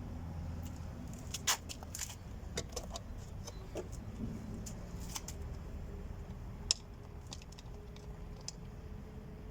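Scattered small clicks and clinks of hand tools and plastic door trim being handled during work on a car door panel, over a low steady hum. The sharpest clicks come about a second and a half in and again near seven seconds.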